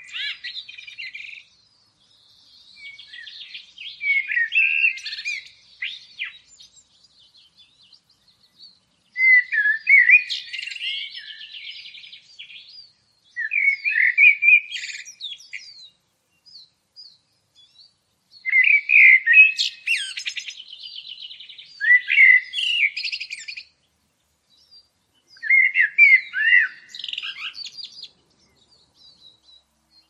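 A songbird singing in separate phrases of quick warbled notes, about seven phrases a second or two apart.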